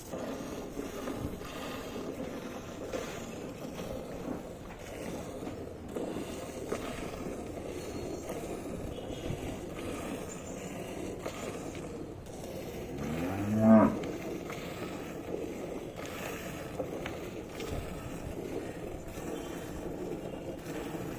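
A Gir cow mooing once, a single call of about a second about two-thirds of the way through, over a steady low background of farmyard noise.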